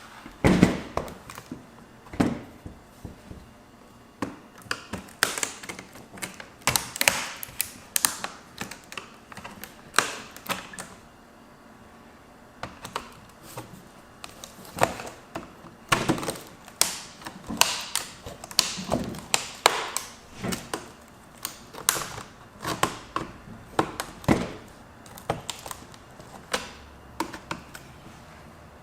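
Screwdriver prying and poking at an HP G72 laptop's keyboard and plastic case to force the keyboard out: irregular clicks, taps and knocks, many in quick clusters.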